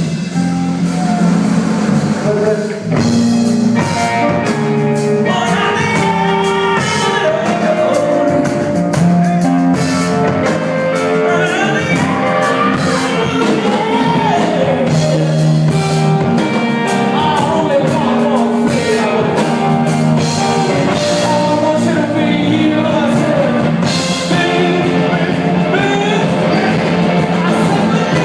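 Live rock band playing, with a singer's voice over guitar and drums.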